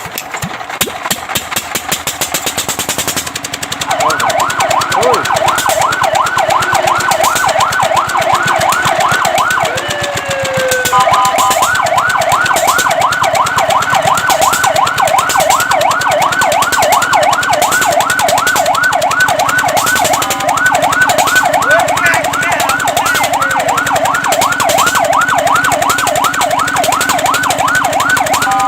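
Fire truck siren in a fast yelp, rising and falling about four times a second, starting about four seconds in after a rapid mechanical clatter. Around ten seconds in it breaks briefly with a falling glide and a short steady tone, then resumes.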